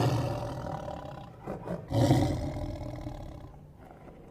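Lion roaring: a roar at the start fading away, two short grunts, then another roar about two seconds in that fades out.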